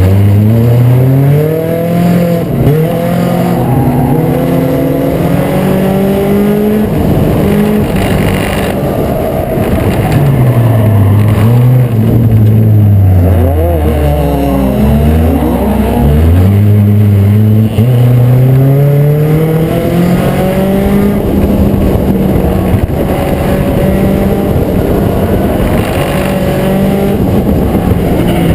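Race car engines at full throttle, the pitch climbing along the straights and dropping off into the turns several times over, with more than one car heard at once.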